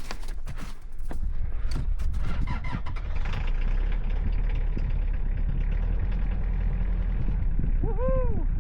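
A van engine running with a steady low rumble, after a few knocks and clatters in the first three seconds. Near the end there is a short squeak that rises and falls in pitch.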